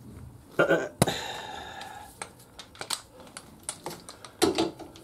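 Metal hand tools and loose engine parts clinking: one sharp metallic clank about a second in that rings briefly, followed by scattered light clicks and taps.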